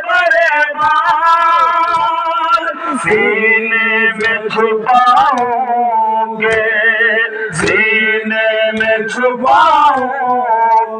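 A man reciting a noha, a melodic Shia lament, into a microphone, in long held notes that waver in pitch, with short breaks between phrases.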